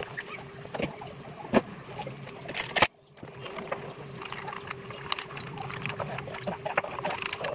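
Hands handling a box of pancake mix and a small steel bowl: scattered light clicks, knocks and rustles over a steady low hum. About three seconds in there is a louder brief crackle, followed by a moment of near silence.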